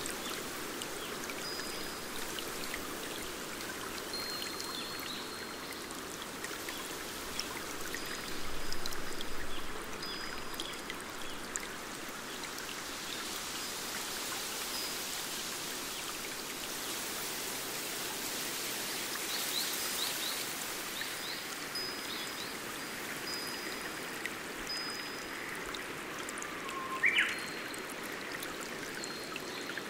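Forest stream running and trickling over rocks in a steady rush, with short, high, thin whistled notes from a bird now and then and one brief louder chirp near the end.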